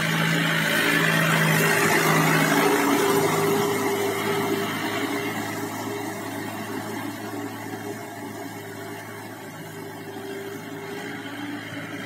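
Mahindra 475 tractor's diesel engine running steadily under load as it drives on cage wheels through a standing dhaincha crop in a flooded paddy field. Loudest in the first few seconds, then slowly fading as it moves away.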